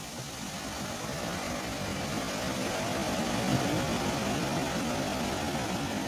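Ocean waves breaking and washing in, one surge building to a peak a little past the middle and then easing off.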